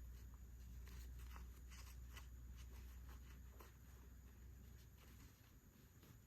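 Faint handling sounds of small plastic toy pieces and packaging during an unboxing: scattered light taps and clicks over a low, steady rumble that fades about five seconds in.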